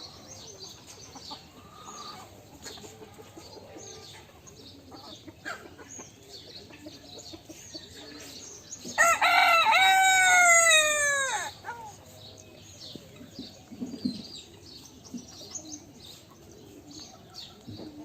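A rooster crows once, about halfway through: one long call of about two and a half seconds that falls in pitch at the end. Faint clucking and small bird chirps go on around it.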